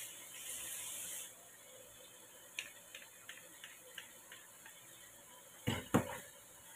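A plastic spice shaker bottle shaken over a pan of raw chicken, giving a run of light clicks about three a second, then two louder clicks close together near the end.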